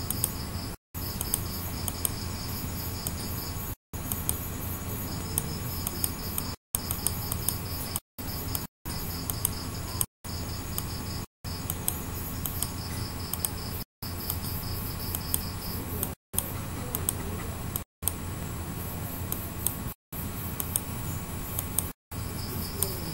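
A high, pulsing insect chirp in stretches of a second or two over a steady hiss and low hum, with faint ticks. The audio cuts out to silence for a moment every second or two.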